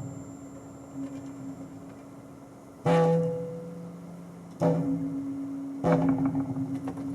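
Electronic sounds made through an audio mixer: three sudden struck-sounding hits, about three seconds in, at four and a half and near six seconds, each leaving a low ringing tone that fades slowly over a steady low hum.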